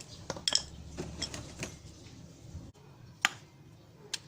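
A few sharp metallic taps and clicks at irregular intervals, from hand tools working on a washing machine motor's housing. The loudest comes about three seconds in.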